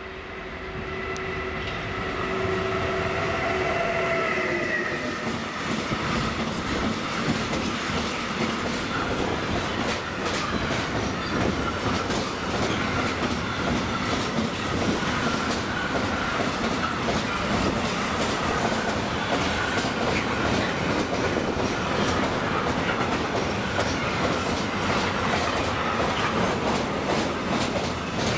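Electric freight locomotive approaching and passing with a steady whine that drops in pitch about five seconds in. After that, the wagons of a long container train roll by with a steady rumble and rapid clickety-clack of wheels over rail joints.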